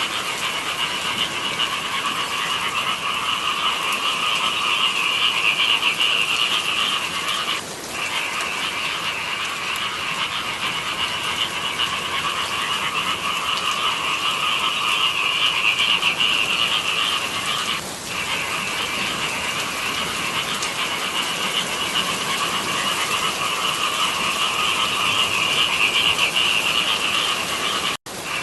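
Dense chorus of many frogs calling in rice fields, a continuous massed croaking that swells and fades about every ten seconds. It cuts out briefly near the end.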